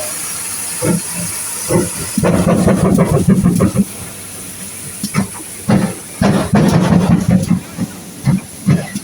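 Steam locomotive hissing steam, then giving heavy exhaust chuffs. The chuffs come unevenly at first and settle into a quicker, even beat near the end, as when a locomotive is starting to move off.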